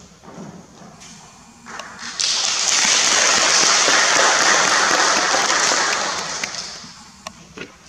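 Audience applauding. The clapping starts about two seconds in, holds, and dies away near the end, followed by a few sharp taps.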